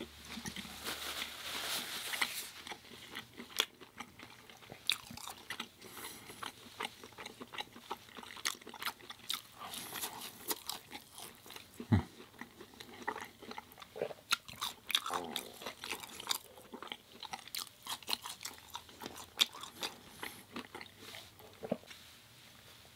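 A person chewing and biting food close to the microphone, with irregular crunches and sharp wet mouth clicks.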